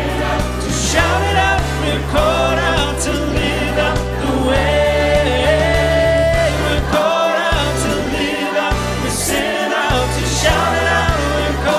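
Mixed choir of men's and women's voices singing a worship song over an accompaniment with a low bass line; a long note is held about midway, and the bass drops out in places near the end.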